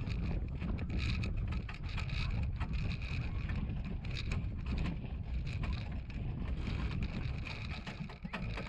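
Miniature pony cart rolling over bumpy dirt pasture: a continuous low rumble from the wheels and many small rattles and knocks from the metal frame and shafts. Wind catches the microphone at times.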